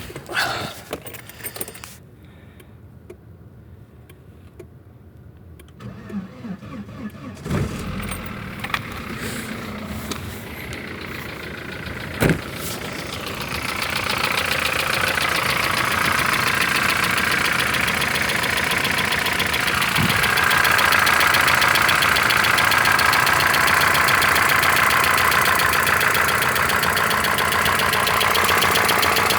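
Opel Vectra A engine starting about seven seconds in, then running at idle with a fast, even knocking that grows louder from about fourteen seconds. The owner cannot find where the knock comes from.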